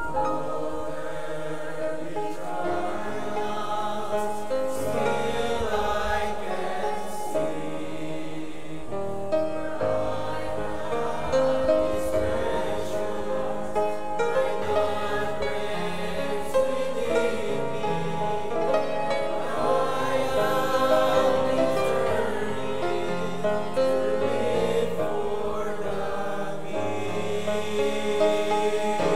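Mixed choir of men's and women's voices singing a gospel hymn in parts, with piano accompaniment.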